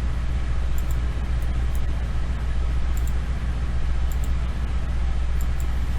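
Steady low electrical hum with background hiss, with a few faint, short mouse clicks scattered through it.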